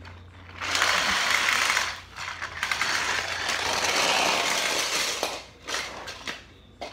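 Battery-powered Thomas TrackMaster toy engine's geared motor whirring with a fast ratcheting rattle, in two bursts, the second one longer.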